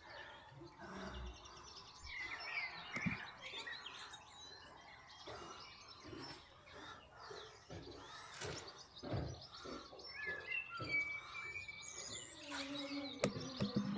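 Small birds chirping and calling in short bursts over steady outdoor background noise, with a few low knocks.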